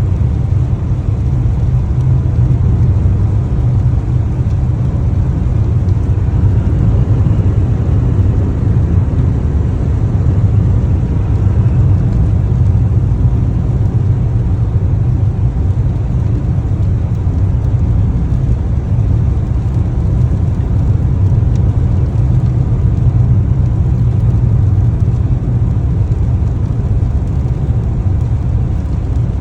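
A car driving at a steady pace: an even, low rumble of engine and road noise that holds unchanged throughout.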